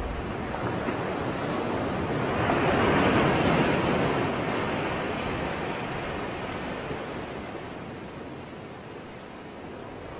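Sea waves on a shore: one wave swells and breaks about three seconds in, then washes back and fades.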